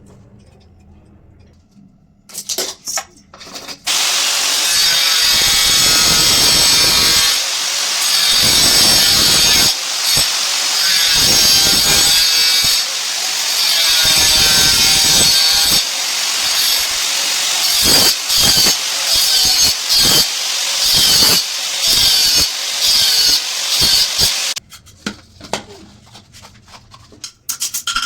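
A power tool working under load: it runs for about twelve seconds, its pitch sagging and recovering as it bites. It is then switched on and off in a series of short bursts before stopping.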